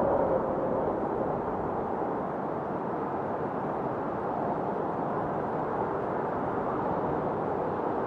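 Steady rushing noise, even and without distinct events, with a faint hum at the start that fades out within the first second.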